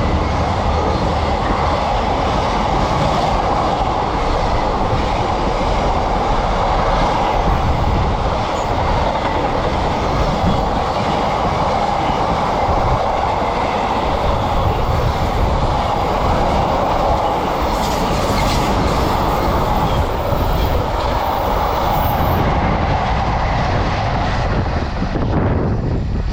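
Freight train rolling steadily past at close range: a continuous loud rumble of wagon wheels on the rails with a clickety-clack over the rail joints.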